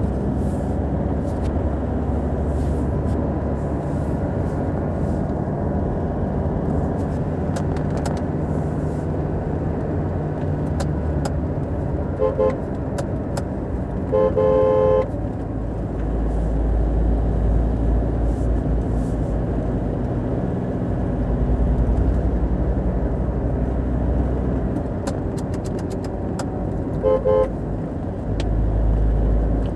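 Steady road and engine noise heard from inside a moving car, with a deep rumble that swells several times. A car horn sounds: two quick toots about twelve seconds in, a longer honk a couple of seconds later, and two quick toots again near the end.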